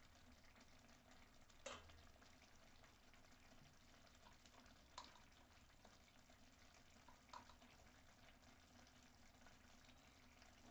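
Faint bubbling of a thick onion-tomato masala cooking in an open kadai, with three short pops a few seconds apart as bubbles burst.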